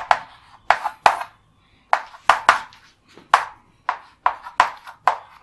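Chalk tapping and scraping on a chalkboard as a line of maths is written, in short sharp strokes at an irregular pace of about two or three a second.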